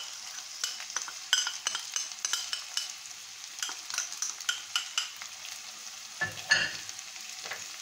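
Chicken strips, onion and green pepper frying in oil in a stainless steel pan: a steady sizzle with many short sharp crackles and clicks. A louder knock comes about six and a half seconds in.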